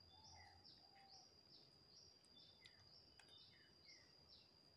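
Near silence: faint, short, high falling chirps repeating two or three times a second over a steady faint high whine.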